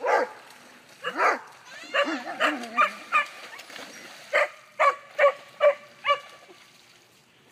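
A dog barking and yelping, with a quick run of five sharp barks past the middle.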